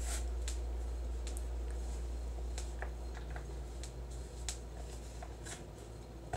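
Hands squeezing and mixing flour-and-baby-oil moon sand in a plastic tub: faint rustles with scattered light clicks, over a steady low hum.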